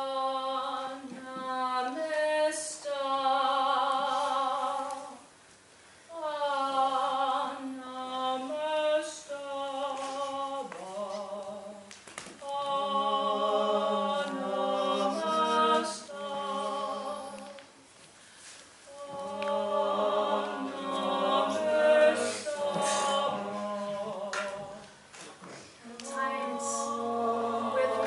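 Voices singing a cappella in long held notes with vibrato, in phrases of a few seconds separated by short pauses, with two voices in harmony at times.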